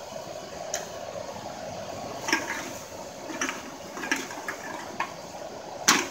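Steady air rush of a hairdryer-blown charcoal bucket furnace melting aluminum cans, with about six sharp metallic clinks and knocks as aluminum cans are handled and dropped into the crucible. The loudest knock comes near the end.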